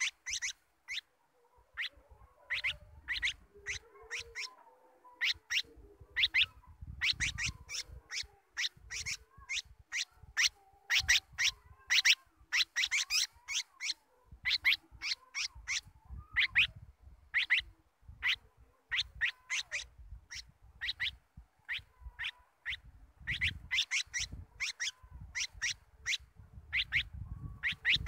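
A bulbul giving rapid, sharp chirping calls, repeated in irregular runs of several a second with short pauses between them.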